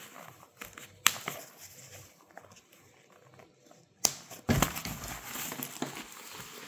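Press-stud snap buttons on a fishing vest's inner lining being pressed shut, two sharp clicks about three seconds apart, followed by the rustle of the vest's fabric as it is handled and folded over.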